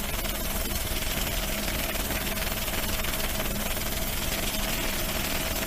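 Steady engine drone with a constant hum and a hiss of rushing air, unchanging throughout.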